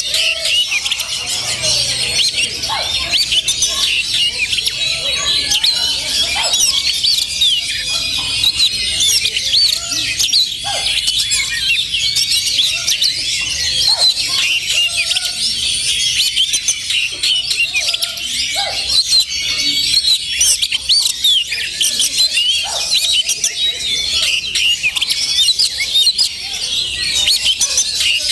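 Oriental magpie-robin (kacer) singing rapid chirps and whistles within a dense, continuous chorus of many other magpie-robins singing at once.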